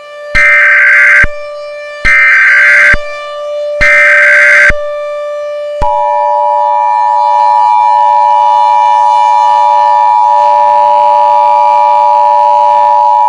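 Emergency Alert System tones: three short bursts of the SAME data header, each a harsh digital screech under a second long, then from about six seconds in the steady two-tone EAS attention signal, held unbroken to the end. A faint steady drone sits underneath.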